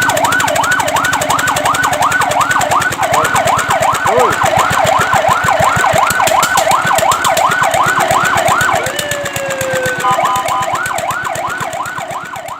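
Fire truck siren sounding a fast yelp, its pitch rising and falling about three times a second. About nine seconds in it breaks into a short, slowly falling tone, then the yelp picks up again and fades away near the end.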